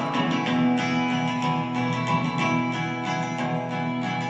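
Instrumental passage of a folk song: acoustic guitar strumming in a steady rhythm, with no singing.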